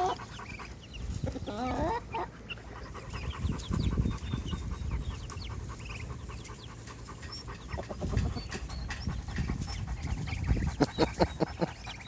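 Chickens clucking and chirping, with a dog panting close by; a quick run of pants comes near the end.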